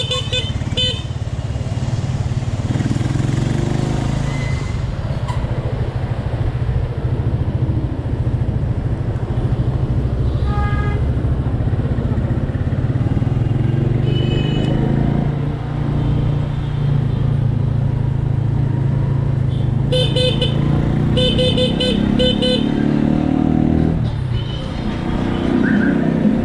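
Motorcycle engine running and accelerating through the gears in city traffic, its pitch rising several times. Short vehicle-horn beeps sound near the start, and a rapid cluster of beeps about three-quarters of the way through.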